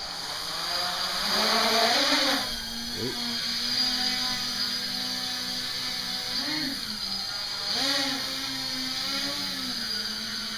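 Home-built quadcopter's four brushless motors and propellers spinning up and lifting off, loudest about two seconds in, then a steady buzzing hum while it hovers. The pitch swells up and down several times as the motor speeds change to hold the craft steady.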